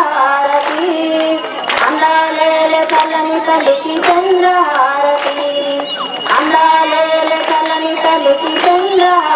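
A woman leading a Hindu devotional song (aarti) into a microphone over a PA, in long held, wavering notes, with other women's voices joining in. Bells jingle along at intervals.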